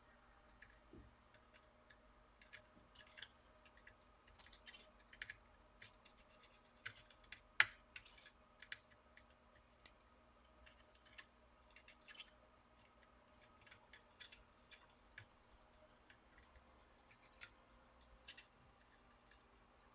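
Faint, scattered clicks and scrapes of small hand tools working on a laptop circuit board, with one sharper click about seven and a half seconds in.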